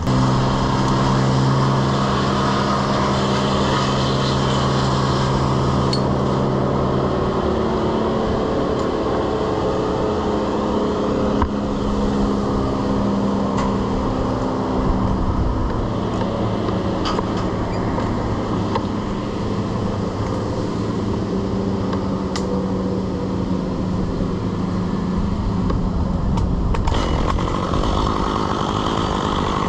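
An engine running steadily, its pitch shifting slightly a few times, with a few light clicks over it.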